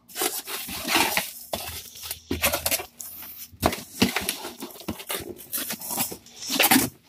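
Corrugated cardboard shipping box being opened by hand: flaps and packing cardboard scraping and rustling in irregular bursts, with short clicks and brief pauses.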